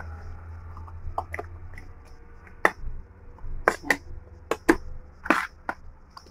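A metal spoon clinking and scraping against plastic bowls as wet chickpea chaat is scooped and spread into a serving dish: about a dozen short, irregular clicks and knocks over a low steady hum.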